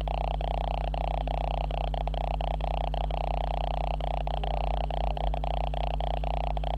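Electrical noise from the camera itself: a steady buzzing hum with a mid-pitched whine over it, broken by brief, irregular gaps a few times a second.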